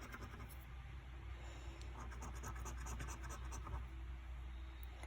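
Scratching off the latex panels of a National Lottery Cash Bolts scratch card: runs of quick, short scraping strokes, with pauses between them.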